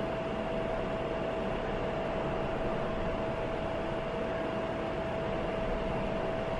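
Cooling fan of a 19-LED moving head wash light running: a steady whir with one constant tone through it. The fan is not really quiet.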